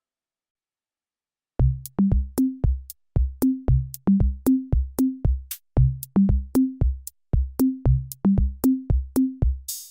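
Background music: an electronic drum-machine beat of deep, pitched kick and tom hits at about two to three a second, coming in after about a second and a half of silence.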